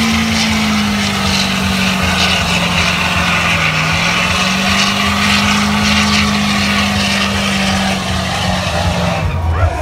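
Chevrolet Silverado pickup's engine held at high revs through a burnout, its rear tyres spinning on the pavement with a dense hiss of tyre noise. The engine note wavers and dips briefly about three and a half seconds in, then falls away near the end.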